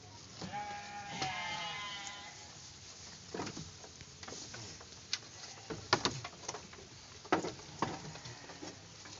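A goat gives one long, wavering bleat starting about half a second in. This is followed by a few sharp knocks over the next several seconds.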